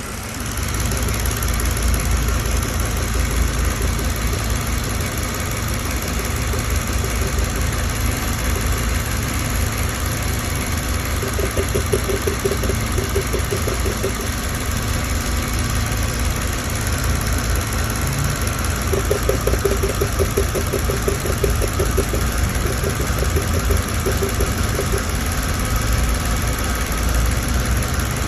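Mercedes-Benz W211 engine running steadily at idle, on a car brought in for a recurring misfire. A pulsing hum comes in over it twice.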